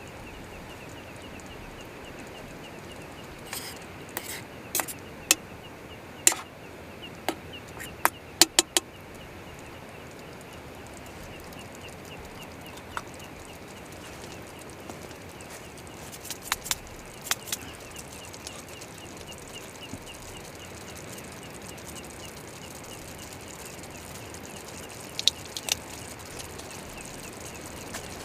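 Clusters of sharp knocks or snaps, several in quick succession, over a steady hiss with a faint rapid ticking.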